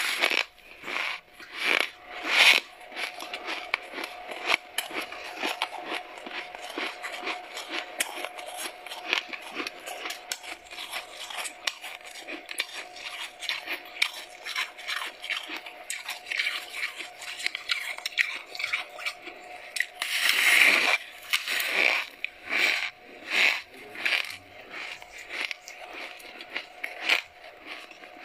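Freezer frost bitten and chewed close to a microphone: a run of soft, grainy crunches, with a louder crunch about three-quarters of the way in.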